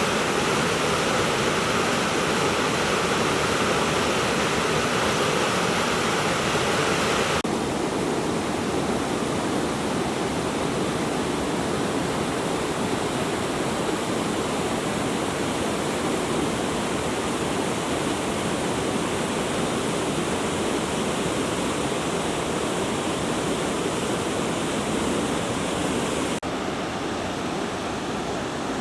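Chubetsu River rushing through a rocky gorge: a steady, dense roar of fast-flowing water. Its tone changes abruptly about seven seconds in and again near the end.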